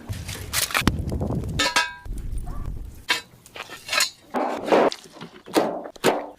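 A run of knocks and clanks with scraping noises between them, a low rumble under the first few seconds, and one short ringing clink about a second and a half in.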